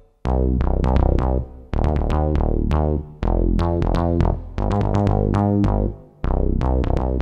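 Technics WSA1R synthesizer playing a dry electronic bass pattern of short, decaying notes over a deep bass. It comes in phrases about a second long with brief pauses between them. By the middle the ROM preset Wow Bass 1 is playing.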